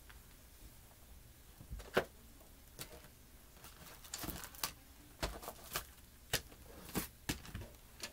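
Small items being handled and shuffled about: irregular clicks, taps and short rustles, the sharpest click about two seconds in.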